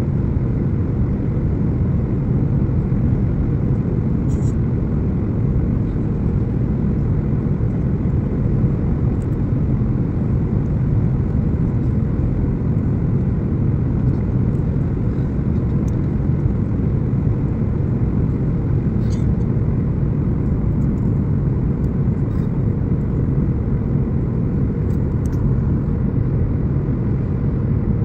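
Airliner cabin noise on the approach to landing: the jet engines and rushing air make a steady low rumble heard inside the cabin, with a faint steady hum and a few faint ticks.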